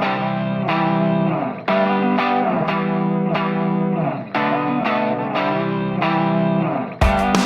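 Background music: an electric guitar playing chords with effects and some distortion. Drums and a full band come in near the end.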